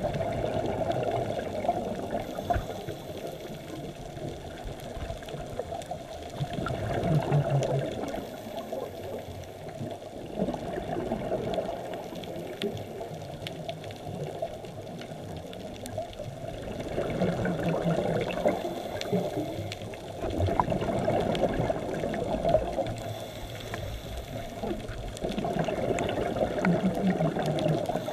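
Scuba diver's regulator exhaust: bursts of exhaled bubbles gurgling past the camera underwater, coming back about every four to five seconds with the breathing rhythm, over a steady underwater hiss.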